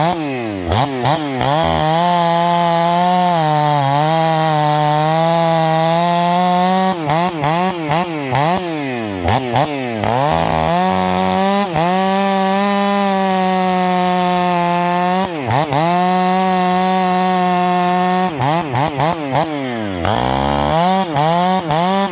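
Stihl 500i fuel-injected two-stroke chainsaw with an 8-pin sprocket cutting firewood. It holds a steady pitch under load through long cuts, with quick throttle drops and revs back up between them.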